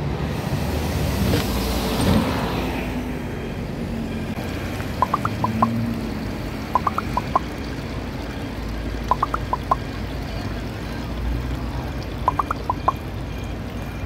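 City street ambience: traffic noise mixed with water splashing into a stone fountain basin. Four small groups of quick high chirps recur every two to three seconds.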